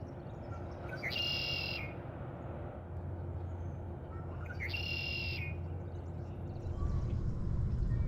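Red-winged blackbird singing twice, about three and a half seconds apart: each song is a short rising note followed by a buzzy trill. A low steady rumble lies underneath and grows louder near the end.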